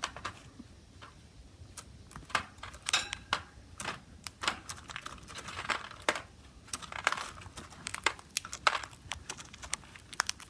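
Cockatiels in their cage eating seed: irregular small clicks and rattles of beaks cracking seed and knocking the cage and feed dish, coming in little clusters.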